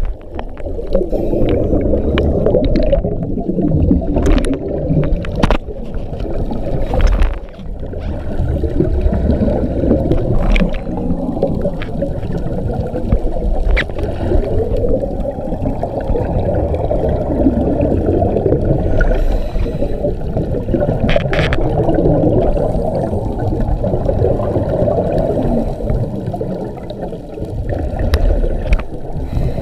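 Muffled gurgling and rumbling water noise heard through a GoPro's waterproof housing, with scattered sharp clicks and knocks.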